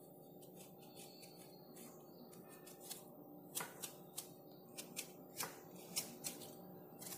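Kitchen knife paring the tough green skin off watermelon rind: faint crisp cuts and scrapes, turning into a run of short sharp clicks after about three seconds, over a faint low steady hum.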